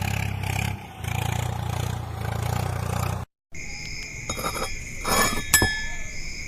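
A diesel engine running with a low, steady throb, which cuts off after about three seconds. Then a steady high-pitched whine with scattered clatter and knocks.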